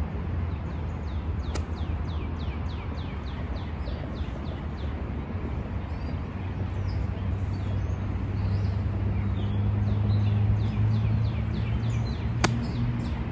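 A songbird sings quick trills of down-slurred chirps over a steady low traffic drone. Near the end a pitching wedge strikes a golf ball with one sharp click.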